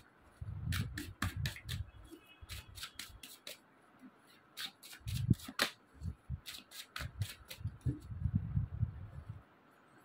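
Tarot cards being shuffled and handled: quick papery card clicks mixed with soft thumps, coming in several bursts.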